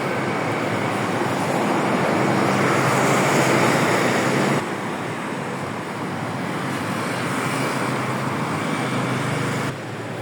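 Steady rushing noise of wind and surf, changing abruptly about four and a half seconds in and again near the end.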